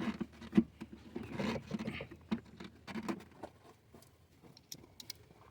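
Irregular light knocks, clicks and rustling from things being handled close by, for about three and a half seconds, then only a few faint ticks.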